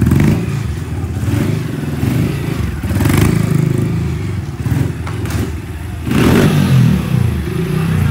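Motorcycle engine revving in repeated hard throttle surges, about every three seconds, each one lifting the front wheel into a wheelie; between surges it runs lower.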